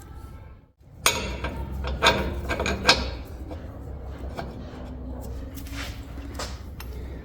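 Metal knocks and clinks of a ball-joint press and its adapter cups being handled and fitted: sharp knocks about a second in and near two and three seconds, then quieter rubbing and handling over a low hum.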